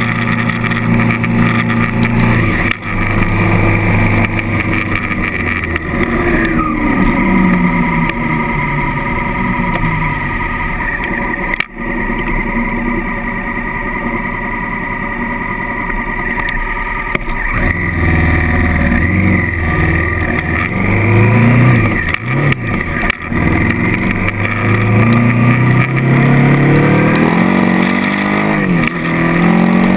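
Honda CRF1000L Africa Twin's parallel-twin engine under way on the road. Its revs fall as it slows, then climb several times as it accelerates, with brief drops in sound at the gear changes.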